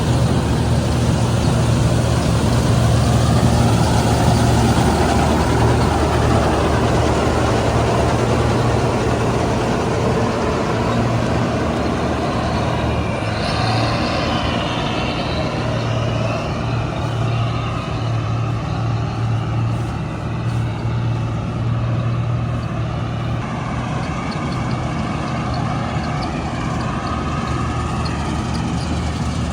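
Combine harvester's diesel engine running steadily under load, with the clatter of the machine's working parts over it. A whine rises and falls about halfway through.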